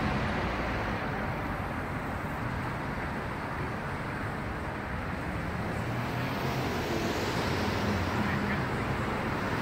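Road traffic: cars and a pickup truck driving past on a street, a steady rush of engine and tyre noise.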